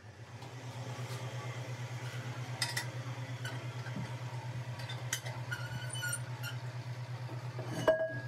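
Factory machine running with a steady, fast-pulsing low hum, with scattered light metallic clinks and one louder clink that rings briefly near the end.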